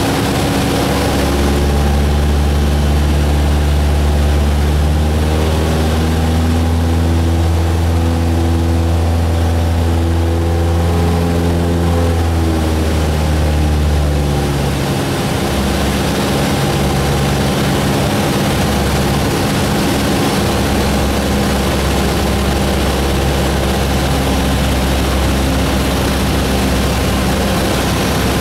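Piston engine and propeller of a single-engine high-wing light plane droning in cruise, heard inside the cabin with a steady rush of air noise. The engine note drops a little about halfway through.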